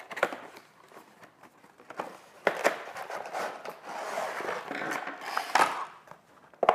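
Small cardboard box being opened and unpacked by hand: card scraping and rustling against card, with a few sharp taps as the box and its contents are handled.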